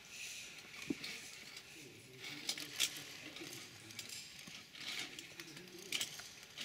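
Sparse sharp clicks and scrapes of a climber moving along a via ferrata ledge beside its steel safety cable, with faint voices in the middle.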